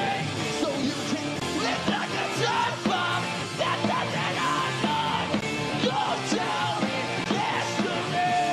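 Live pop-punk band playing a song: electric guitars, bass and drums, with a lead vocal sung into the microphone.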